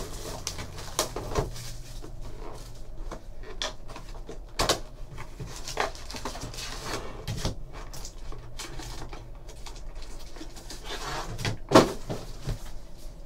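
Plastic shrink wrap crinkling as it is pulled off a cardboard trading-card box, then the box lid opened and foil packs pulled out and laid on the table: scattered crinkles, scrapes and taps, with one louder knock near the end.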